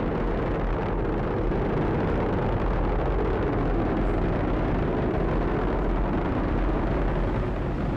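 Falcon 9 first stage's nine Merlin 1D engines in ascent, a steady deep rumble.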